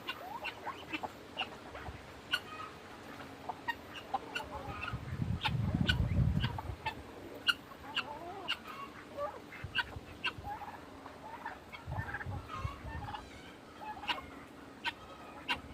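Backyard poultry (chickens and turkeys) calling and clucking, many short calls close together. A low rumble comes up about five seconds in and again around twelve seconds.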